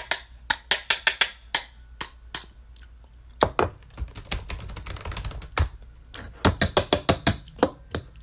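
Fast typing on a laptop keyboard: runs of quick key clicks, several a second, broken by short pauses.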